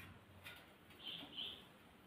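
Bicycle wheel hub being worked by hand, its axle and cone nuts turning: a light click, then two short, faint high squeaks of metal parts rubbing.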